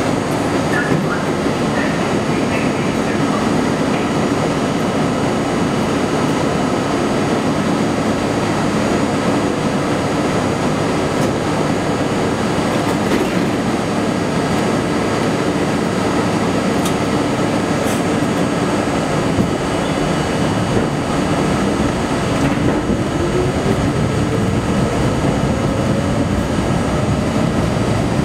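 Budd R32 subway car standing at a station with a steady running hum, then, about three-quarters of the way through, its traction motors start up with a whine rising steadily in pitch as the train pulls away.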